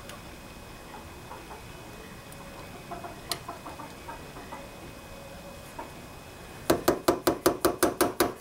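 Faint small metal ticks as a tamper-proof carburetor float bowl screw is worked loose by hand, then a rapid, even clicking, about six clicks a second, starting near the end.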